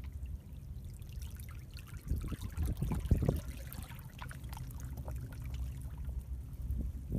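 Seawater flowing and gurgling through a narrow channel between rocks, over a steady low rumble. It swells into louder splashing between about two and three and a half seconds in, then settles back.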